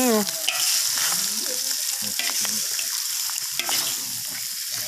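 Raw rabbit meat sizzling as it goes into hot oil and spice paste in a wok, the sizzle growing stronger about half a second in, with scattered clicks of a utensil stirring in the wok.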